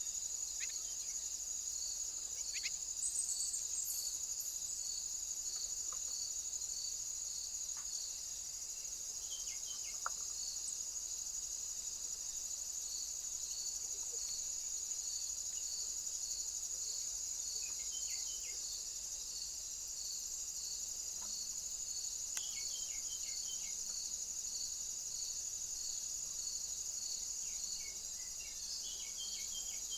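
Outdoor insect chorus, crickets: a continuous high-pitched drone with a regular chirping pulse a little over once a second. A few short, quick bird call phrases come in now and then.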